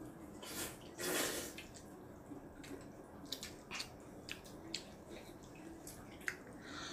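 Wet mouth sounds of children eating jjajangmyeon (black bean noodles): slurping and chewing with many short smacking clicks, and one louder slurp about a second in.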